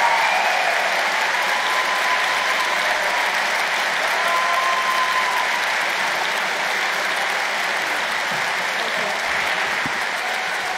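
A large audience applauding steadily, with no break.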